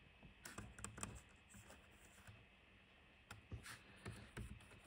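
Faint keystrokes on a laptop keyboard: scattered taps in small clusters as a name is typed into a text field.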